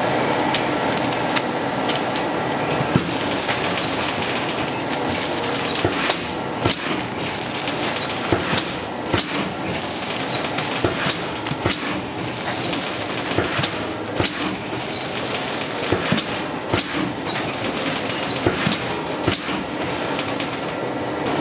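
SF500F3 fully automatic continuous film sealer running, its conveyor belts and film feed making a steady mechanical noise with frequent irregular clicks and knocks.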